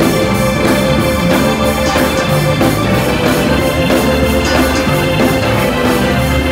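Live gospel band playing with no singing: an organ holds one long note over drums, bass and electric guitar, with a steady beat of drum and cymbal hits.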